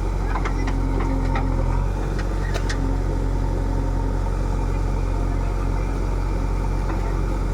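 Heavy diesel engine of a JCB-type machine running steadily, with a few light clanks in the first three seconds.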